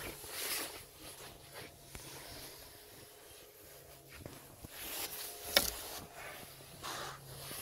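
Footsteps and clothing rustle of people walking through a boat's cabin corridor, irregular soft strokes about twice a second, with one sharp knock about five and a half seconds in. A faint steady low hum runs underneath.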